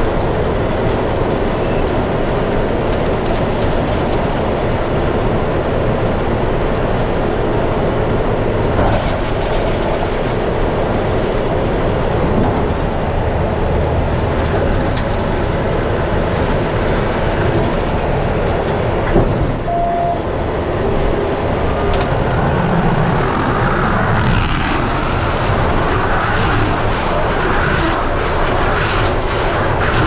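John Deere 6155R tractor's six-cylinder diesel running steadily under load, heard from inside the cab, together with the C440R round baler-wrapper working behind it. A short beep comes about twenty seconds in, and there are a few faint clicks near the end.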